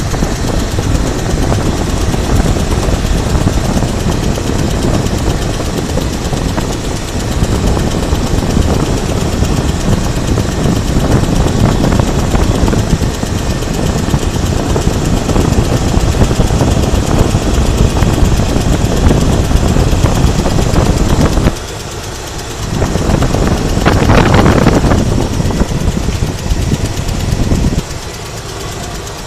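1976 Chevy Blazer's carbureted engine running steadily at idle. There is a brief dip in level about three-quarters of the way through, followed by a short louder stretch.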